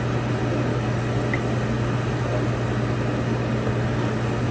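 Steady low hum with an even hiss over it, the sound of a kitchen appliance's motor running, such as a range hood fan.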